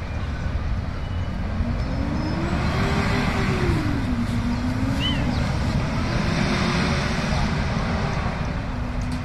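Steady low rumble of a passing vehicle, with a humming tone that rises over the first few seconds, falls, then holds level.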